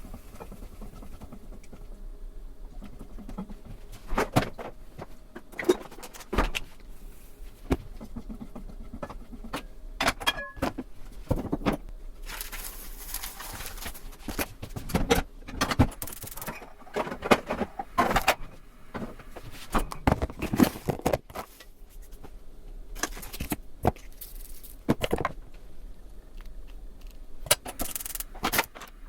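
Kitchen utensils and cookware clinking and knocking in irregular, sharp strikes, with short stretches of brushing or scraping noise.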